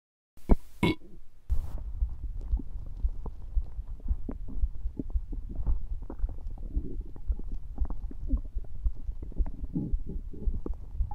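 A human stomach growling and gurgling: a steady low rumble full of small squelches and gurgles, some briefly rising higher in pitch.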